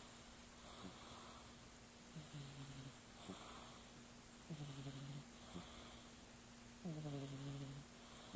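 A female cat snoring in its sleep: three drawn-out, pitched snores about two seconds apart, each under a second long, with softer breathy sounds between. The last snore, near the end, is the loudest.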